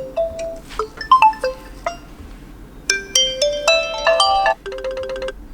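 Default alarm tones of a Realme C31 smartphone playing: short, chiming electronic melodies. A denser phrase begins about three seconds in, and a fast run of rapidly repeated notes follows near the end.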